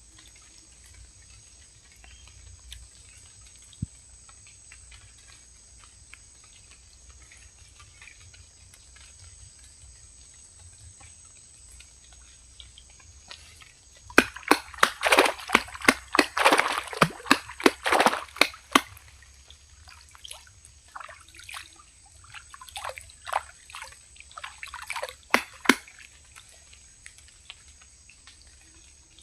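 Water splashing and dripping: quiet at first, then a dense run of sharp splashes for about five seconds from about halfway through, followed by scattered smaller splashes.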